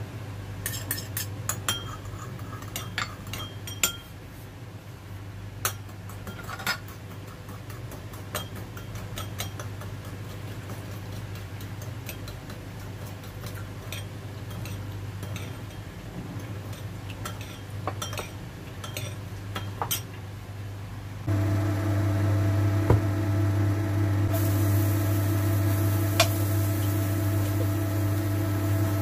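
Metal spoon clinking and tapping against small glass bowls as a sauce is poured and stirred, in short irregular clinks. After about twenty seconds the sound cuts to a steady, louder hum with a few level tones, and a high hiss joins it a few seconds later.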